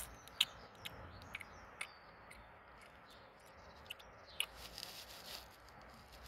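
Faint scattered clicks and light taps of plastic toy horse figures being handled against a plastic fence and feeder, with a sharper click about half a second in and another about four seconds in.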